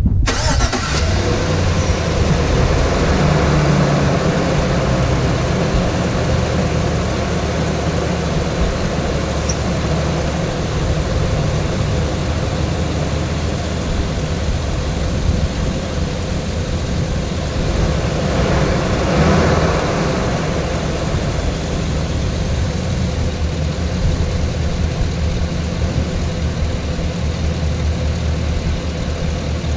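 Chevrolet 6.0-litre Vortec V8 starts up and settles into a steady idle, run for a minute after a fresh oil fill before the oil level is rechecked. It is a little louder for the first few seconds and swells briefly about two-thirds of the way through.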